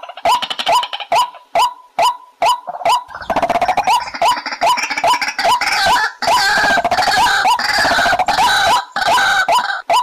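White-breasted waterhens calling: a steady series of short, harsh calls repeating two to three times a second. From about three seconds in to near the end, a dense chorus of many overlapping calls joins in.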